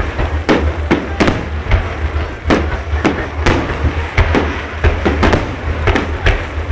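Fireworks display: a rapid, irregular string of bangs, two or three a second, over a steady low rumble.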